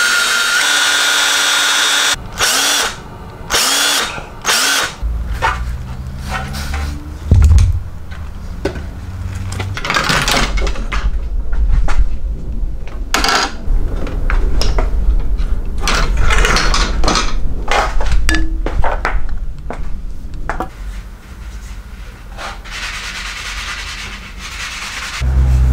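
Cordless drill boring into a pine block, running steadily with a whine for about two seconds, then several short trigger bursts that speed up and slow down. After that, irregular knocks, rattles and scraping with a low rumble.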